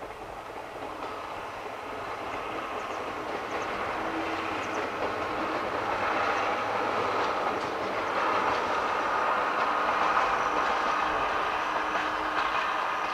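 Okuizumo Orochi tourist train, hauled by a DE15 diesel locomotive, passing at a distance: its engine and wheel noise grow louder through the first half and stay loud through the end, with a faint steady whine in the second half.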